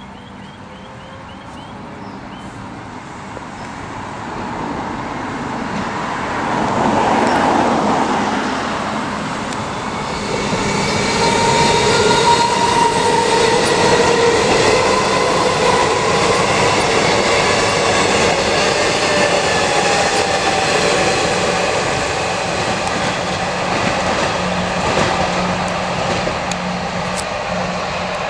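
Melbourne Metro Comeng suburban electric train approaching and running past on the track. It grows louder over the first seven seconds or so, then stays loud, with a steady multi-toned motor whine over the rumble of wheels on rail.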